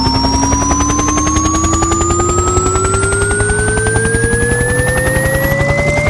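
Speaker burn-in test signal: three pure sine tones sweeping slowly upward together, layered over a rapid, chopping helicopter rotor sound effect with a deep low rumble.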